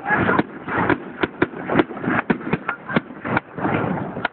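Fireworks going off in quick succession: about a dozen sharp, irregular bangs and cracks over a rumbling background of further bursts.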